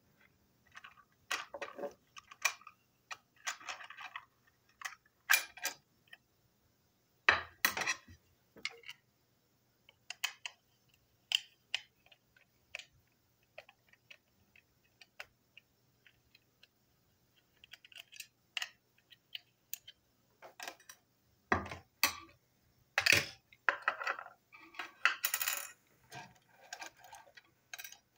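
Small hard plastic and metal toy-train parts being handled and taken apart with a screwdriver: irregular clicks, taps and light clinks as pieces are pulled off and set down on a table, with a few short rattling, scraping stretches in between.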